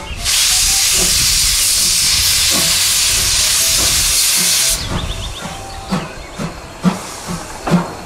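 Steam locomotive venting steam from its cylinder drain cocks: a loud, steady hiss for about four and a half seconds that cuts off suddenly. A run of short, regular chuffs follows, about two to three a second.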